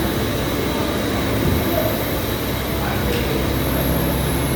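Steady machine-shop din from CNC machining centres running: a continuous mechanical hum and hiss, with a faint high whine that comes and goes.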